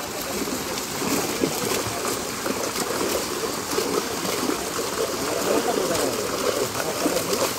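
Water splashing and churning as a crowd of netted fish thrashes at the surface inside a drag net, with people's voices in the background.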